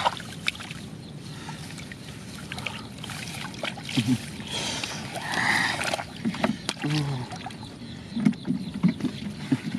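Shallow muddy water sloshing and splashing as hands work through it, with scattered small clicks and a longer splash about halfway through.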